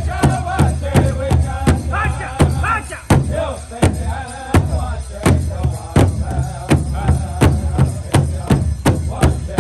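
Powwow drum group: several drummers striking one large powwow drum together in a steady beat of about three strikes a second, with singing over it that thins out about four seconds in.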